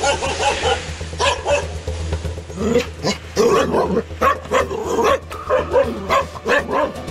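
A dog barking over and over, the barks coming thick and fast from a few seconds in, as it reacts to vehicles passing its kennel. The owners suspect the cause is fear of cars from being run over as a puppy.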